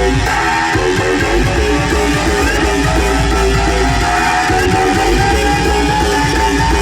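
Loud DJ dance track with a heavy, steady bass and a regular beat under a repeating guitar-like melody; a rising tone comes in about halfway through.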